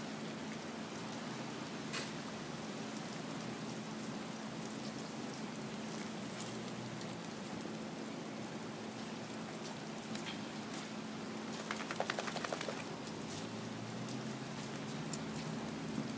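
Steady hiss of rain falling, with a brief quick rattle of clicks about three-quarters of the way through.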